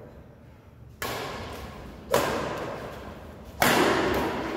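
Badminton rackets striking a shuttlecock in a rally: three sharp hits about a second apart, each ringing out with a long echo.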